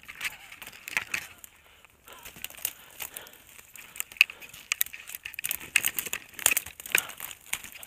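Dry twigs and branches of a brush pile crackling and snapping as a hand and arm push into it, in quick irregular clicks that come much thicker after about two seconds.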